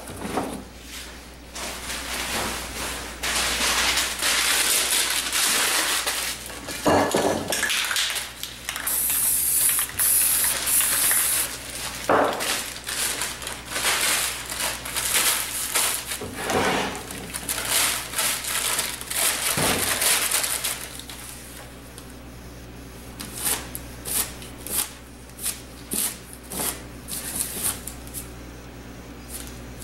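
Aerosol spray-paint can hissing in uneven bursts, then, from about two-thirds through, a glossy magazine page crinkling and crackling as it is laid and pressed onto the wet paint.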